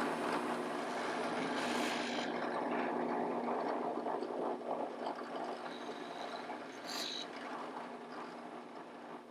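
Benchtop drill press running with a countersink bit, drilling countersunk screw holes into plywood strips one after another. A steady motor hum under the noise of the bit cutting, with a couple of short clicks, fading down near the end.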